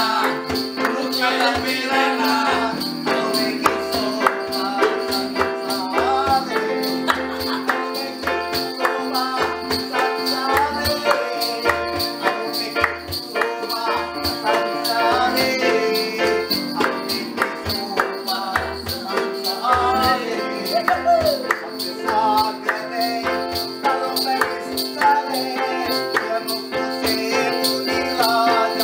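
Live baila played on an upright piano, with a steady hand-drum beat and male voices singing along.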